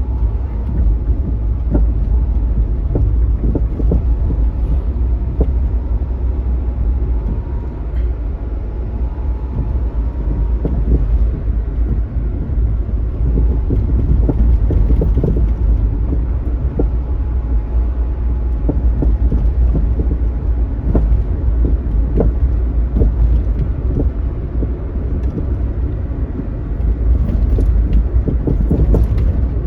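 Honda Vamos being driven: a steady low road-and-engine rumble, broken by frequent irregular light knocks. These are the front-end 'kotokoto' rattle, like something tapping the floor, that is the fault being chased.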